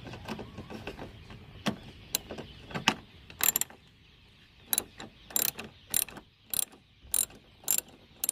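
Socket ratchet wrench clicking as it undoes a rear light cluster mounting bolt. A few separate clicks at first, then a regular click about every half second.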